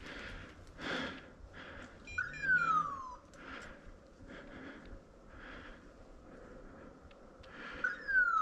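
Two descending, hawk-like mewing cries about six seconds apart, each gliding down for about a second, over soft rustling.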